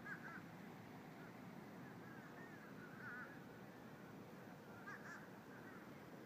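Faint bird calls, a scattering of short chirping calls every second or so, over a steady low background noise.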